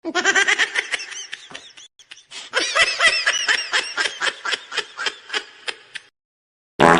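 Comedy sound-effect laugh: rapid, high-pitched snickering at about five bursts a second, with a brief pause near two seconds, dying away about six seconds in. A short burst of noise follows just before the end.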